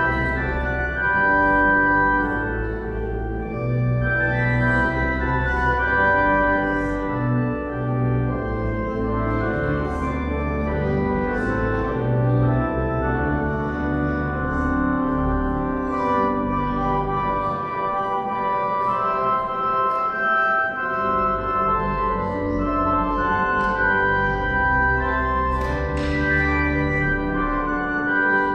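Church organ playing slow, sustained chords over a deep pedal bass. The low bass notes drop out for a few seconds past the middle, then return.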